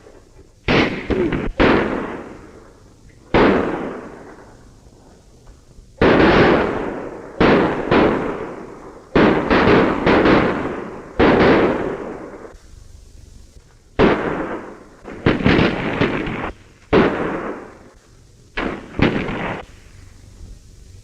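A gunfight: about fifteen gunshots fired at irregular intervals, some in quick pairs and runs, each shot echoing away for a second or more.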